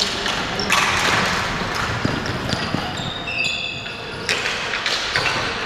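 Ball hockey play: sticks and the ball clacking and knocking on the concrete floor in quick irregular impacts, with a few brief high squeaks near the middle during a scramble in front of the net.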